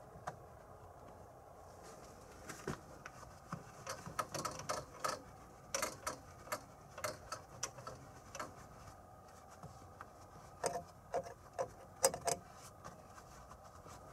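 Irregular small metallic clicks and clinks of tools and parts being handled during work on a rice transplanter's front axle, in two clusters: one starting a couple of seconds in, the other near the end.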